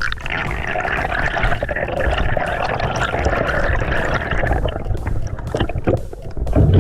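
Water bubbling and rushing in a steady loud hiss over a low rumble, easing off after about four and a half seconds. A low thump comes near the end.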